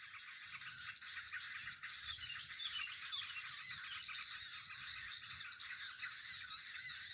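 A dense chorus of small birds chirping and twittering, many short overlapping calls with no pause.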